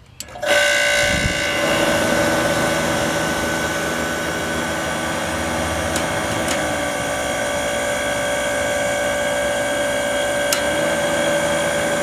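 Edison DHE40S dehumidifier switching on about half a second in, its fan motor and swapped-in donor compressor running steadily with a hum and a few fixed whining tones. A few light ticks are heard over it.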